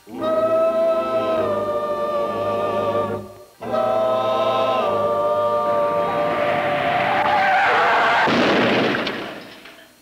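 A choir sings long held chords in two phrases, with a short break about three and a half seconds in. Over the last chord a wash of noise swells up, then everything fades out near the end.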